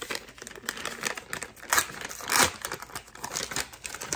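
Plastic snack packaging crinkling and tearing as hands open a bag of M&M's candy and a plastic-wrapped package, with irregular crackles and a few sharper rips, the loudest about halfway through.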